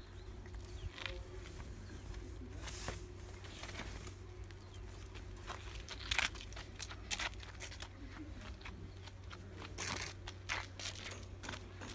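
Irregular crunching and scuffing footsteps on a gritty path strewn with dry leaves, over a low steady rumble.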